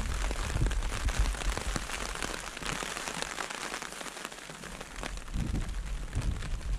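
Rain falling on a tent's fabric, heard from inside the tent as a dense hiss of many separate drop hits. Wind gusts rumble on the microphone at the start and again near the end.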